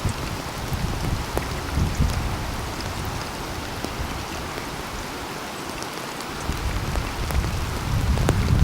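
Steady rain, with individual drops ticking sharply on a surface. Under it runs a low rumble that fades away about midway and builds again near the end.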